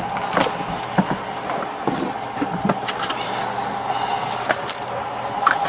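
A car seatbelt being pulled across and handled, its metal latch plate giving scattered sharp clicks and knocks amid clothing rustle, over a steady hum from the car.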